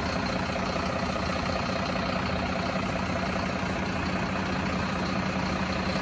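A heavy engine idling steadily, with a constant low hum.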